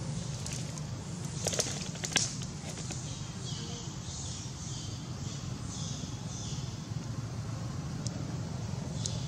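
Outdoor ambience with a steady low rumble, broken by a few sharp twig snaps and crackles, the loudest about one and a half and two seconds in, as a baby macaque clambers through dry branches. Faint high chirping sounds through the middle.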